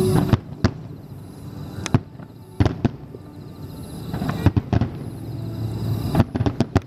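Aerial firework shells of a starmine barrage bursting: sharp booms at uneven intervals, with a quick cluster of reports near the end.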